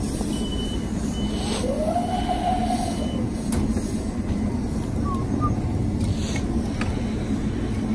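Metro-North M7A electric train standing at the platform, its equipment giving a steady electrical hum. A high, broken beeping tone sounds over the first three seconds while its doors close.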